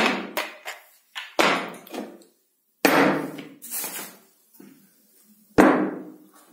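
3D-printed plastic parts being handled and set down on a wooden work table: a series of irregular knocks and clatters, each fading quickly.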